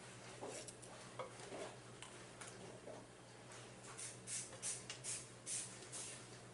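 Quiet small clicks and knocks of hands working with food and containers, then a run of six or seven short hissy shakes over about two seconds, starting about four seconds in.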